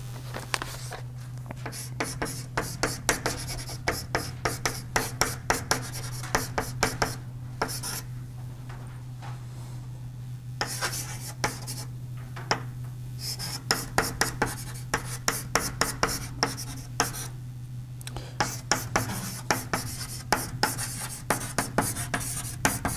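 Writing on a lecture-room board: runs of quick taps and scratches with short pauses, over a steady low hum.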